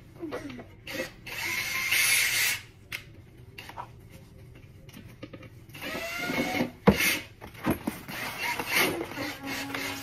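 Cordless drill/driver running in short bursts as it drives screws into a children's chair, with a sharp knock about seven seconds in and some handling clatter.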